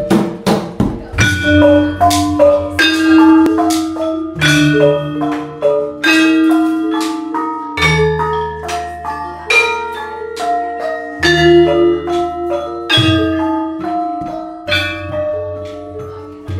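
Javanese gamelan ensemble playing together: bronze kettle gongs and metallophones struck in an interlocking melody over hand-drum strokes, with deep gong tones ringing under them several times.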